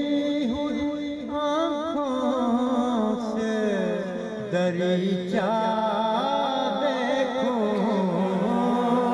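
A man's voice singing a line of Urdu verse in a slow, melodic chant, with long held notes that glide up and down.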